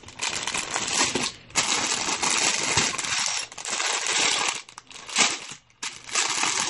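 Clear plastic bags of small robot-kit parts crinkling as they are picked up and handled, the loose pieces inside shifting, in several stretches with short breaks between.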